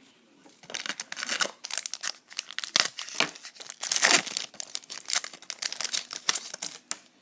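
Plastic trading card pack wrapper crinkling and tearing as it is handled and torn open, a dense irregular crackle running for several seconds.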